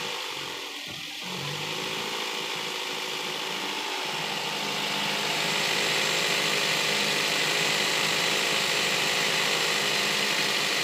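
Steady hiss of gas through a car air-conditioning manifold gauge set, getting louder about five seconds in, with the car's engine running underneath.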